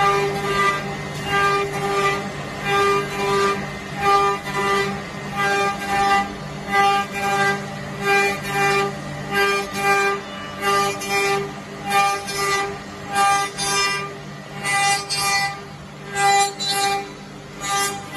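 Eight-spindle, 32-tool CNC wood milling machine cutting wooden workpieces: a steady spindle whine with regular surges of cutting noise, about every 0.7 seconds, as the cutters bite into the wood.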